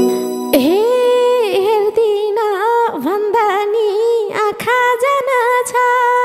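A woman singing a Nepali folk (dohori) vocal line alone, without accompaniment: one long held, wavering line with ornamented dips and bends in pitch. The band's drums and instruments stop just at the start, and the voice comes in about half a second later.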